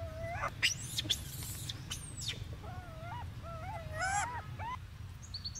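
Infant macaque calling: short, arched coos, one at the start and then a quick run of them from about three seconds in, with a few sharp high squeaks in between, over a steady low background noise.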